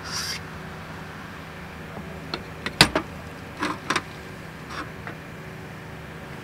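A few sharp clicks and knocks, the loudest a little under halfway through and two or three more just after, over a steady low hum.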